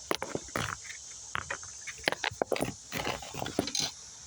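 Irregular clicks, knocks and scrapes of close handling, as the recording device is set down and the banding tools are worked, over a steady background chirring of crickets.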